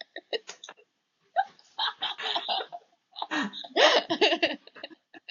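Girls laughing in about three breathy bursts with short pauses between them.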